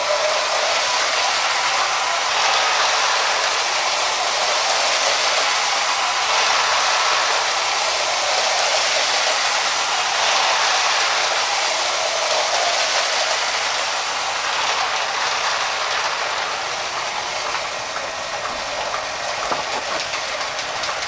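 LEGO 7898 Cargo Train Deluxe running around a plastic track oval: a steady whir and rattle of its motor and wheels on the plastic rails, with a run of sharp clicks near the end.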